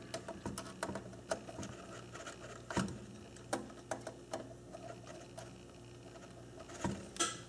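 Irregular small clicks and ticks of wire and metal parts being handled while a wire is fitted to the brass screw terminals of a rotary telephone dial, over a faint low steady hum.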